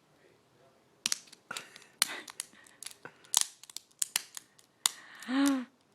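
Metal handcuffs, said to be broken, clicking and rattling as someone works at them to get them open: a run of sharp clicks over several seconds. A short vocal grunt comes near the end.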